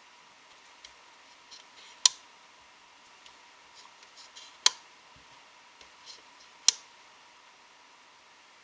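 Sharp plastic clicks of rubber loom bands being stretched and snapped onto the pegs of a plastic band loom, with three loud clicks about two seconds apart and fainter taps and rustles between.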